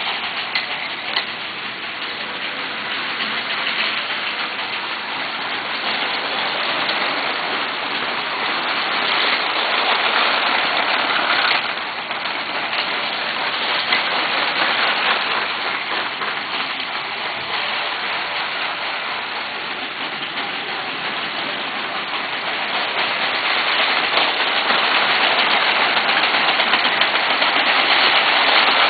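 Lego 12-volt trains running on the layout's track: a steady, dense plastic rattle of wheels and motors, louder over the last few seconds as a train comes close.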